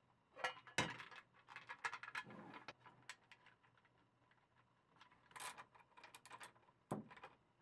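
Light clicks and knocks of small parts and a wiring harness being handled on a tabletop, then a socket ratchet clicking in short runs as it tightens the standoffs that hold an adapter plate to an EMS housing, ending with a single knock.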